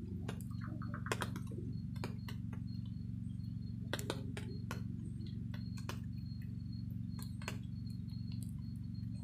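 Log-cabin campfire burning, the wood crackling with irregular sharp pops over a steady low rumble; the loudest pops come about one and four seconds in.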